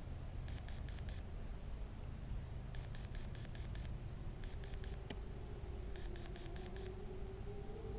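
Electronic buzzer on a downed FPV quadcopter beeping in quick bursts of high beeps (four, then six, three and five), a lost-model alarm. One sharp click about five seconds in, and a faint wavering, siren-like tone rises in during the second half.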